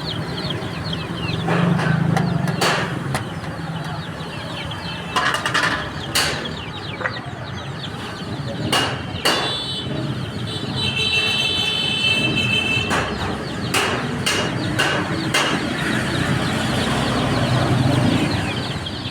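Many baby chicks chirping nonstop in a dense stream of short high peeps, over a low steady hum. Scattered sharp knocks break in, and a held high tone sounds for about two seconds near the middle.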